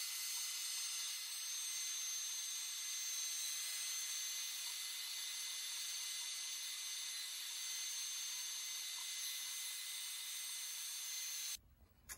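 CNC router's trim-router spindle running at speed, a steady high-pitched whine, as its bit carves the first letter into a rounded wooden baseball bat. It stops abruptly near the end.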